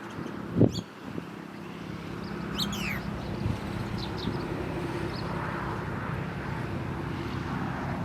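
Steady low engine hum that swells after the first couple of seconds, with a few short, high bird chirps over it, the clearest a falling call about two and a half seconds in. A low thump sounds just after the start.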